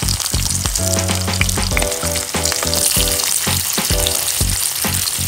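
Pork chops marinated in calamansi and soy sauce sizzling in hot oil in a metal pan with white onions, a dense, steady crackle. Background music with a regular beat plays underneath.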